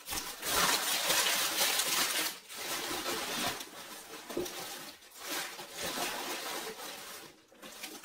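Packaging rustling and crinkling in the hands as items are unpacked and sorted, in several irregular spells with a few light clicks.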